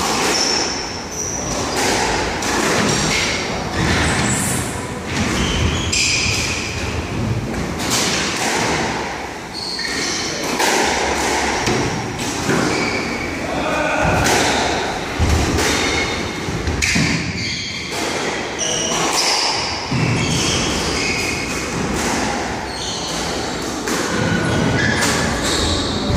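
Squash rally: the ball smacks off rackets and thuds against the walls about once every half second to a second, with short squeaks of court shoes on the wooden floor between the hits.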